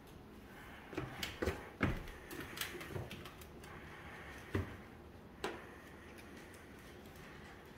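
Scattered soft thumps and clicks in a quiet room: slow footsteps on a hardwood floor, the loudest between about one and two seconds in, with two more single knocks around four and a half and five and a half seconds in.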